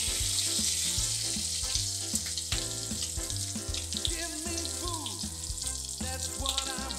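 Bacon strips sizzling steadily as they fry in their own rendered fat in a cast iron skillet, with background music underneath.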